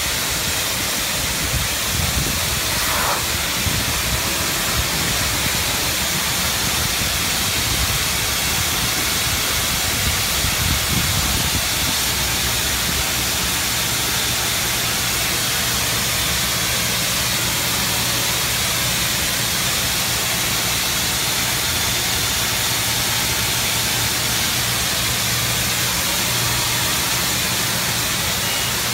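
Self-serve car wash high-pressure wand spraying a rinse, a steady loud hiss of the water jet striking the branches of an artificial Christmas tree, with a steady low hum underneath.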